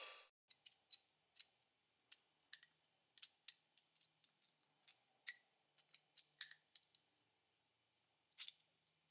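Abrasive blast cabinet's air hiss cuts off just after the start, then faint, irregular sharp clicks and ticks of a small steel pistol slide being handled and turned over in the fingers, a few louder ones in the middle and a short cluster near the end.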